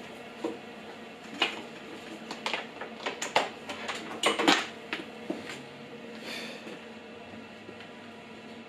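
Handling noises: scattered sharp knocks and clicks with some rustling, the loudest a few knocks a little past halfway. This is preparation for the cut: ear defenders going on and a steel pipe being set in the cut-off saw's vice, with the saw not running.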